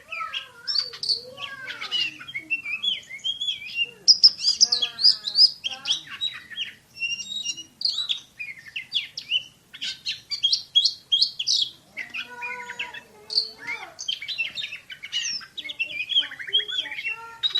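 Oriental magpie-robin (kacer) singing a long, varied song of rapid, sharp whistles and chattering notes, delivered in fast, tightly packed 'tembakan' (rapid-fire) phrases.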